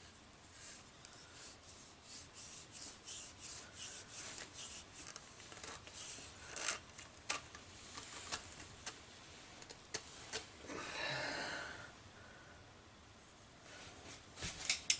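Faint rubbing and scraping of plastic as a 1-inch female PVC fitting is handled and screwed on: a run of short scrapes and clicks, then one longer drawn-out scrape about eleven seconds in.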